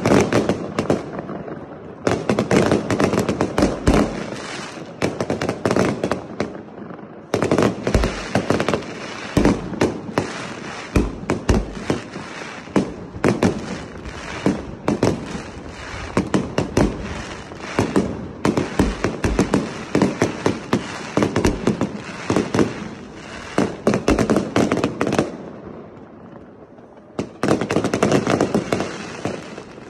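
Aerial fireworks going off close overhead in rapid, dense volleys of bangs and crackle, with brief lulls about a second in and again near the end.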